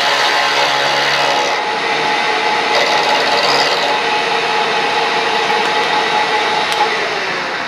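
Milling machine with a 3/4 inch end mill cutting a slot in metal: a steady, rough cutting noise over a faint spindle whine. The cut lightens about a second and a half in and fades off near the end as the cutter comes up out of the slot.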